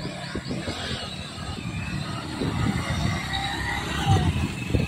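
Motorcycle engines running as the bikes pull away and ride along the road.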